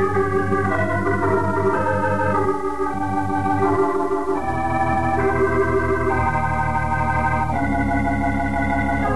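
Organ music playing a bridge between scenes: held chords that change every second or two.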